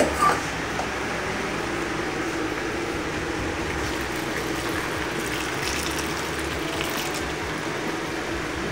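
Jaggery syrup boiling in a pan on the stove, a steady bubbling hiss; the syrup is at the stage where a drop forms a ball in water, ready for the flour.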